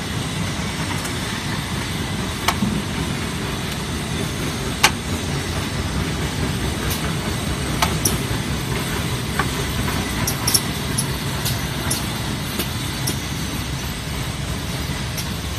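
Automated car mirror assembly line running: a steady low machinery hum with sharp clicks and knocks from the station's grippers and fixtures, scattered irregularly, the loudest about five seconds in.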